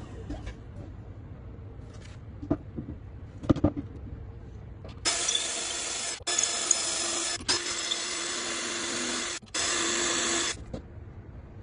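Cordless drill running a pocket-hole bit through a pocket-hole jig's guide hole into a board. It runs in four spells with brief pauses between them, starting about five seconds in, after two knocks.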